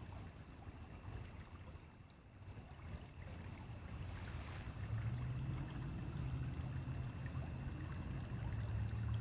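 Stream water flowing: a steady, deep rushing that gets louder about halfway through.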